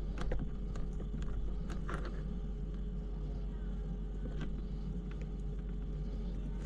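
Small scattered clicks and light scrapes of a hand driver and a tiny screw being worked into a mini RC crawler's chassis, with the screw reluctant to seat. A steady low hum runs underneath.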